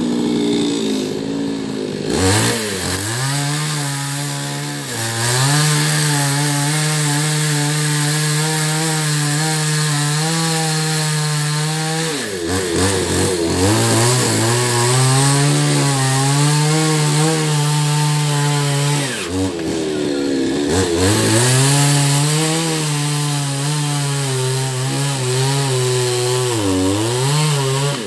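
Newwest Professional 588 two-stroke petrol chainsaw cutting through a fallen coconut palm trunk at full throttle. The engine note holds high for several seconds at a time, dropping and revving back up a few times between cuts.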